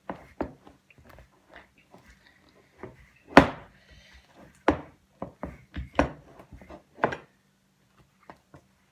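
Wooden spoon stirring thick homemade slime in a plastic mixing bowl, knocking against the bowl in a series of irregular thuds, the loudest about three and a half seconds in.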